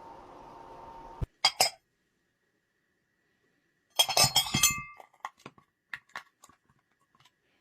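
Glass clinking: two quick clinks, then about four seconds in a burst of clattering with ringing tones, followed by scattered lighter clinks.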